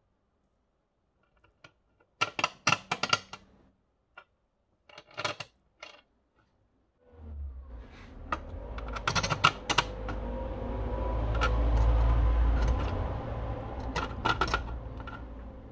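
Small metal parts clicking and clattering as steel steering cables and their clamp are fitted by hand onto an outboard motor's steering bracket, in short clusters of clicks. From about halfway a low rumble with rustling joins in under further clicks and fades near the end.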